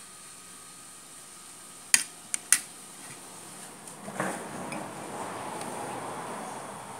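Metal cooking utensil clinking against cookware three times in quick succession, followed by a few seconds of noise that swells and fades.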